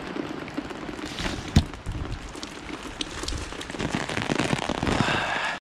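Rain pattering, with many sharp crackly drop hits close to the microphone and a single louder knock about one and a half seconds in.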